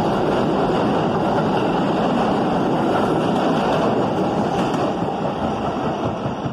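New York City Subway R160B train with Siemens propulsion running on the rails, a loud, steady rumbling noise that eases off slightly after about four and a half seconds.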